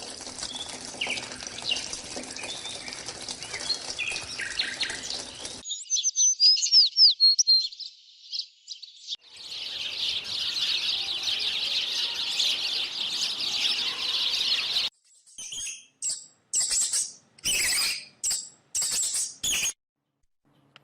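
High-pitched animal chirps and calls in several short clips cut one after another: first scattered chirps over a noisy background, then quick sliding chirps, then a dense high chattering, and near the end a string of short separate calls with gaps between them.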